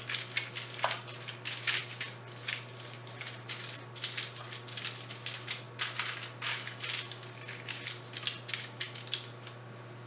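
Parchment paper rustling and crinkling in a baking tray as cooking oil is rubbed over it: a quick series of scratchy strokes that stop about nine seconds in, over a steady low hum.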